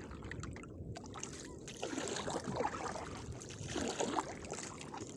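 Faint water lapping and dripping around a small wooden outrigger canoe while a wet crab-trap line is pulled up from the water by hand.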